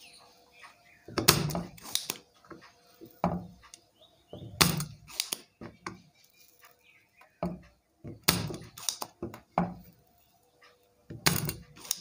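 Spring-loaded desoldering pump being cocked and fired against solder joints on a circuit board, sucking solder off the pins of the inverter's driver card to free it. It gives a series of sharp snaps and clunks, about ten in all, a second or so apart, with quiet gaps between.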